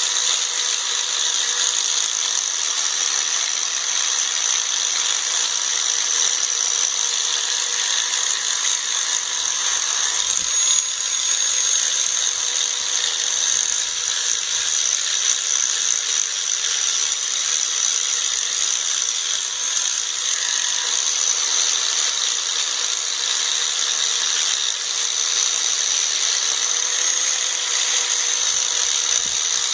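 Electric grinder running steadily, grinding down a fresh weld on a steel tractor lift arm. Its motor whine dips slightly a couple of times as it bears on the metal.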